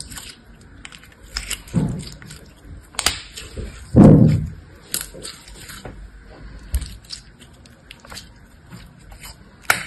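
Glossy green slime squeezed and kneaded in a hand: wet squelches with sharp clicks and pops, the loudest squelch about four seconds in.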